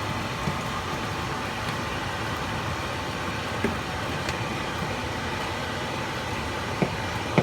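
Steady hissing noise from the stove while food cooks in a hot pan, with a few light clicks and knocks of utensils.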